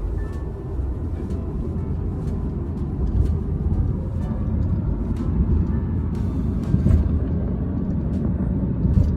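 Low, steady road and engine noise heard from inside a moving car's cabin.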